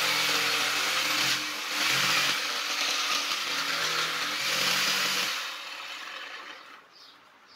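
Electric jigsaw mounted under a saw table, running and cutting through a wooden plank, then switched off a little past five seconds in and winding down.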